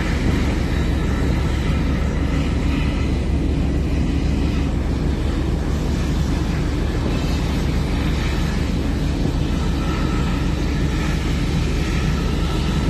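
Steady low drone of a ship's engines and machinery heard from on deck, unchanging throughout.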